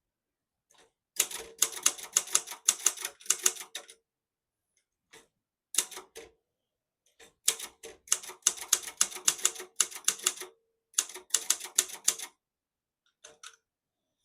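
Typing on a 1980s Silver-Reed Silverette portable typewriter: rapid runs of sharp key strikes lasting a second or three each, with short pauses between the runs and a few single strikes near the end.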